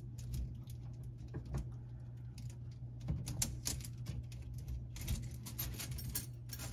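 Light metallic clicks and taps of a Kohler Kaori faucet's brass retaining ring and its mounting screws being handled and slid onto the supply hoses. The clicks come faster toward the end, over a steady low hum.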